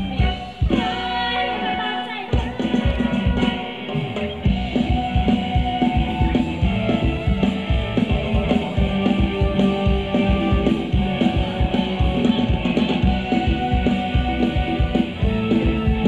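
Live band playing Thai ramwong dance music, with a steady, fast drum beat.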